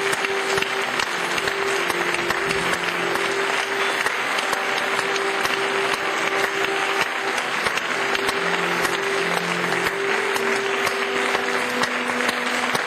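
Audience applauding steadily, with a guitar holding notes quietly underneath.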